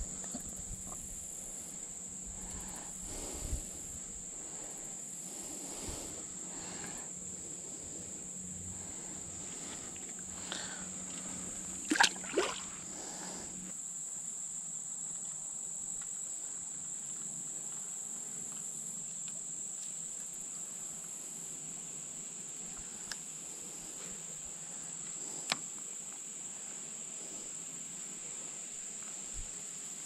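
Steady high-pitched drone of insects, with a few short clicks and knocks from handling the fishing gear, the loudest a pair about twelve seconds in.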